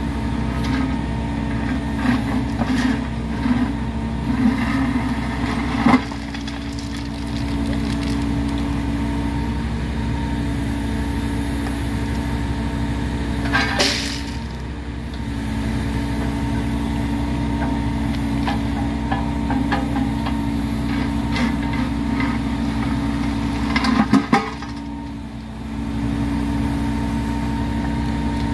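A heavy engine idling steadily, with a few sharp knocks and clanks over it: one about six seconds in, another near the middle and a short cluster near the end.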